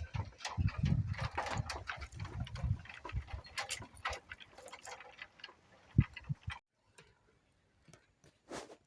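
Irregular clicks and knocks over a low rumble, a sharp thump about six seconds in, then near silence.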